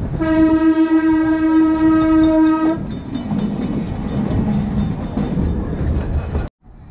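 Red Arrow trolley's horn sounding one steady blast of about two and a half seconds, then the car rolling on with a rumble of wheels on the track until the sound cuts off suddenly near the end.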